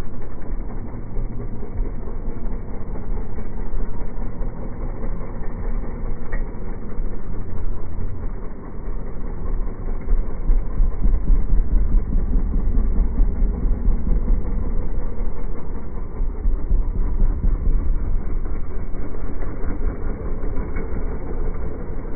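KTM motorcycle engines running, mostly at idle, a steady low rumble.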